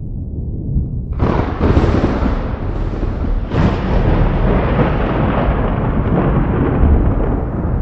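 Thunder: a low rumble breaks into a sharp crack about a second in, a second crack comes a couple of seconds later, and the thunder then rolls on.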